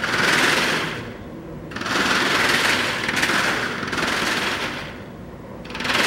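Flip-dot display wall, its many round discs flipping over in a dense, rapid clicking rattle that comes in waves as patterns sweep across the matrix. One short wave at the start, a longer one from about two seconds in to nearly four, then a fading tail, a brief lull and a new wave at the end.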